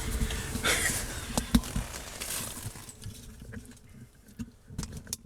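Rustling and small clicks of clothing and gear being handled close to the microphone, busiest in the first couple of seconds and thinning out toward the end.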